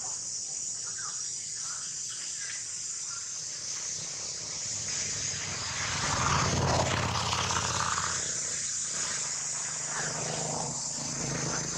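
Insects, crickets or cicadas, droning steadily at a high pitch in the forest, with a louder stretch of rustling noise about six to eight seconds in.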